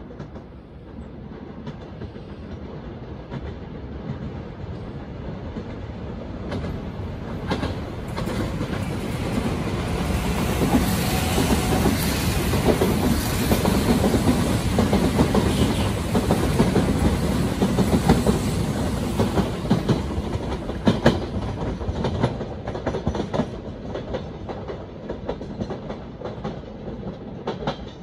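Two Odakyu electric commuter trains passing each other on a multi-track line, their sound swelling to a loud rumble through the middle. Wheels click over the rail joints as they draw away, and the sound fades near the end.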